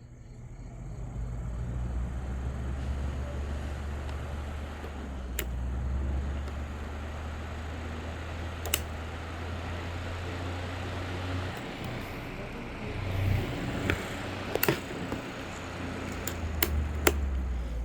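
Climate Keeper HB-BN-9B 9-inch box fan motor starting up and running with a steady low hum that comes up over the first couple of seconds, with a few sharp clicks along the way. The startup sound is one the owner says seems like dry bearings, though he finds the bearings fine.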